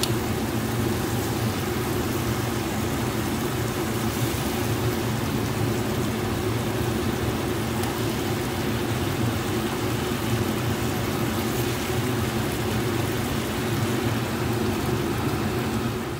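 Stir-fried long beans sizzling steadily in a frying pan on the stove, over a steady low hum.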